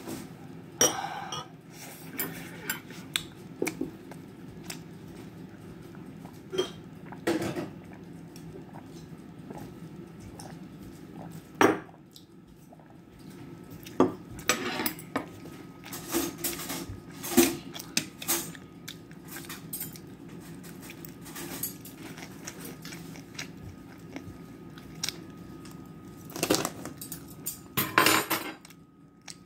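Metal spoon and chopsticks clinking and tapping against dishes while eating: irregular sharp clinks, a handful of them much louder than the rest.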